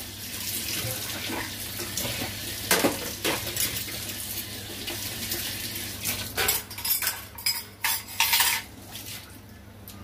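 Kitchen tap running into a stainless-steel sink while dishes are scrubbed and rinsed, with scattered clinks and clatters of dishes and utensils. A quick run of clattering comes about two-thirds of the way through, and the water noise drops near the end.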